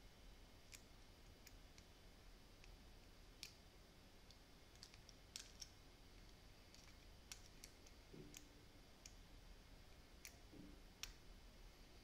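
Faint, irregular clicks of a steel lock pick probing the pin stacks inside a padlock's pin-tumbler keyway, feeling out what sounds like four pins.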